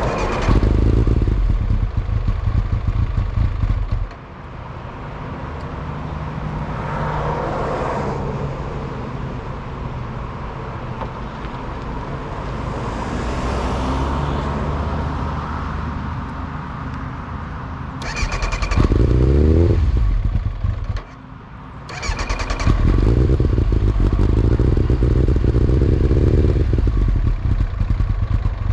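1999 Kawasaki ZX-9R inline-four engine running, loud at first, then quieter for a long stretch. Its pitch rises in a rev about two-thirds of the way in, the sound drops away for about a second, then it comes back loud. The owner suspects a bad fuel pump is making the bike die.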